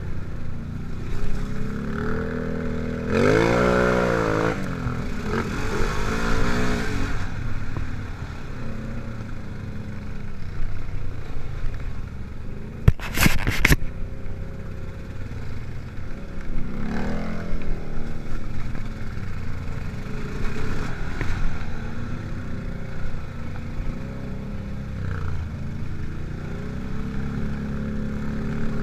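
ATV engine running while being ridden over a dirt trail, revving up and back down a few seconds in and again later. A short burst of sharp knocks about halfway through.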